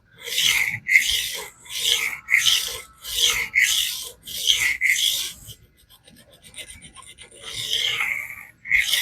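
Knife blade of CTS-BD1 stainless steel being stroked back and forth across a diamond sharpening plate, a rasping scrape about two to three strokes a second. The strokes pause for about two seconds past the middle, with only faint light ticks, then resume near the end.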